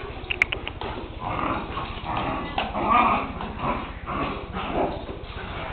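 Dogs barking in play, a string of short barks about two a second.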